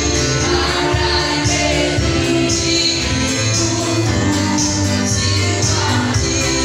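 Live gospel worship music: several voices singing through microphones with an electric guitar and keyboard band, over a regular beat.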